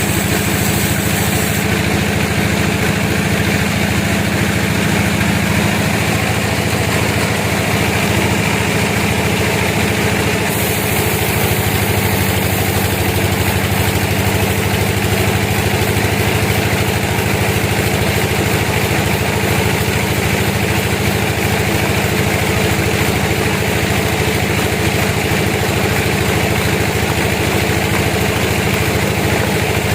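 Sawmill machinery running steadily, a constant engine drone. Its tone shifts slightly about ten seconds in.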